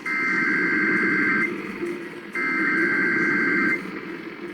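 Emergency Alert System SAME header tones: two bursts of the harsh digital data screech, each about a second and a half long with about a second's gap between them, over a steady low noise from the radio feed. They are the repeated header bursts that open an EAS Required Weekly Test, just before the spoken test message.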